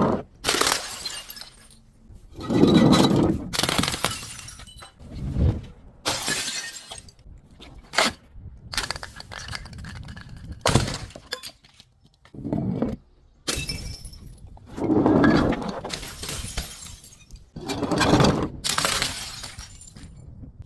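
Glass bottles breaking and shattering in a long run of separate crashes, one every second or two, each trailing off in ringing shards.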